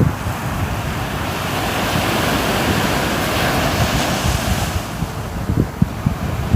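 Ocean surf: a wave washes in, a hiss that builds about a second in and dies away near the five-second mark, over a constant uneven low rumble of the sea.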